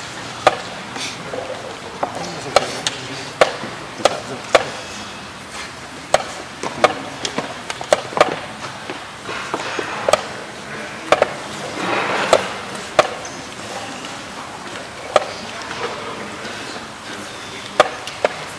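Wooden chess pieces set down on a wooden board and the buttons of a digital chess clock hit in turn, a quick, irregular run of sharp knocks and clicks, about one a second, as the opening moves are played fast.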